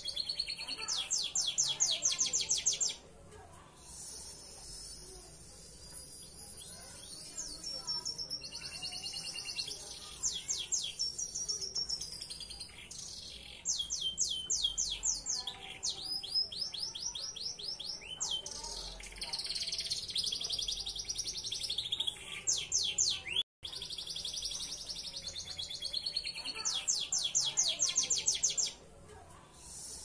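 Belgian Bossu canary singing a long, varied song: rapid rolling trills of repeated high notes alternate with short whistled and buzzy phrases. The sound cuts out for an instant about two-thirds of the way through.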